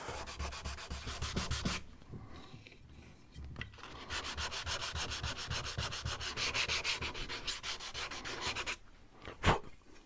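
Hand sanding with a sanding block, rapid back-and-forth strokes rubbing bamboo skewer ends flush with a jarrah wood surface. The strokes stop for about two seconds and then resume. Near the end there is a single sharp knock as the block is put down on the wooden bench.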